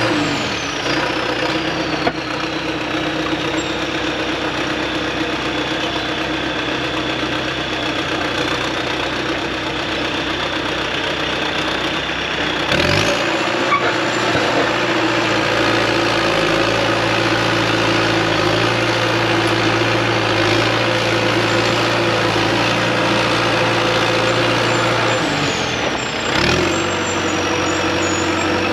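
Heavy diesel engine of a 55,000 lb JCB excavator running steadily, with a high whine that falls in pitch at the start and shifts abruptly twice, about halfway and near the end.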